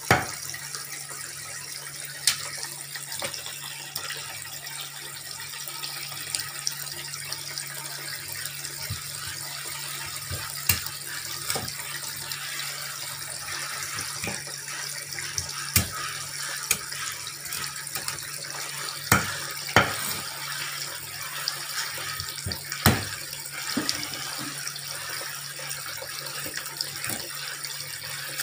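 Kitchen tap running steadily into a metal pot in a stainless steel sink, with a handful of sharp knocks from a cleaver chopping fish on a wooden cutting board.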